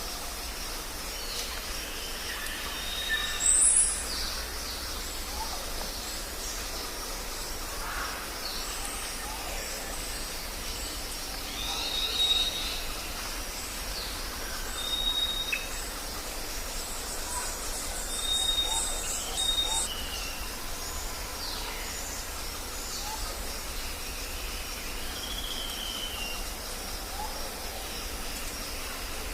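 Tropical forest ambience: many birds calling over a steady background hiss, with short whistled notes, a trill, and a loud high whistle that falls in pitch about three and a half seconds in.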